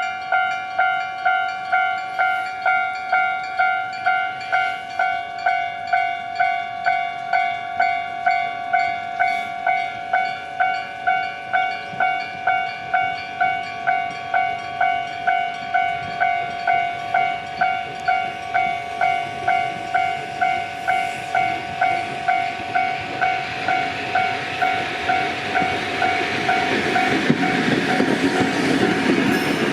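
Japanese railroad crossing bell ringing its steady electronic "kan-kan" at about two strikes a second. In the last several seconds a train approaches and runs over the crossing, its wheel and running noise rising until it drowns the bell.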